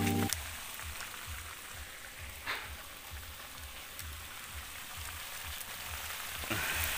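Pan of vegetables and sardines in broth simmering over an open wood fire: a steady sizzling hiss.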